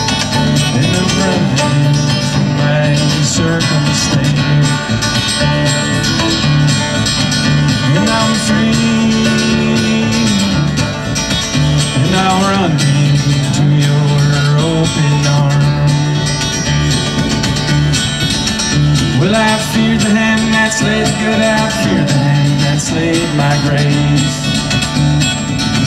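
Live acoustic folk string band playing: upright bass, fiddle, banjo, acoustic guitar and hand drums, with a strong line of deep bass notes.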